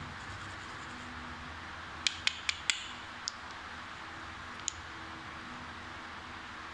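Small cylindrical battery cells from a fake power bank clicking against each other as they are handled: four quick hard clicks about two seconds in, then two more single clicks, over a steady hiss.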